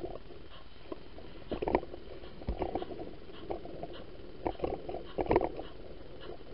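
Model freight train running on its track, heard from on board a wagon: a steady hum with irregular clusters of clicks and rattles as the wheels pass over the rail joints, the loudest just under two seconds in and about five seconds in.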